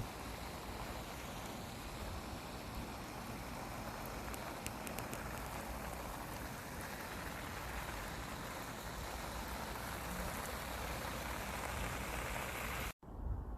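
Steady hiss of falling water, like rain on the ground, which cuts off suddenly near the end.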